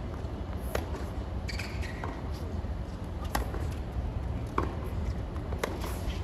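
A tennis rally: tennis balls struck crisply by rackets, about one hit every second and a quarter, with a steady low hum of the arena behind.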